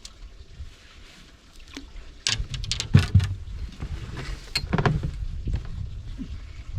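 A large flathead catfish being wrestled in a landing net at the side of a boat: sharp knocks and thuds against the boat mixed with water splashing, starting about two seconds in, with the loudest hit about a second later.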